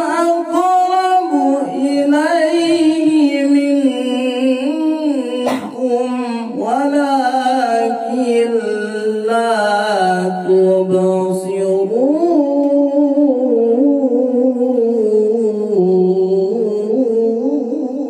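A male qori reciting the Quran in the melodic tilawah style into a handheld microphone: long held notes with wavering, ornamented runs. The line drops lower about ten seconds in and swoops up again a couple of seconds later.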